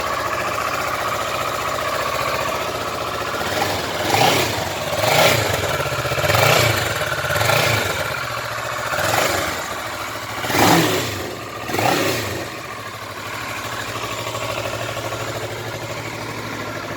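Kawasaki ER-6n's 649 cc parallel-twin engine idling, then revved with about seven short throttle blips, each rising and falling in pitch, before settling back to a steady idle.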